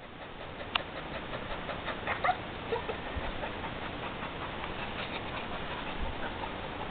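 Springer spaniel giving a few short, high whines over a steady outdoor hiss, with one sharp click under a second in.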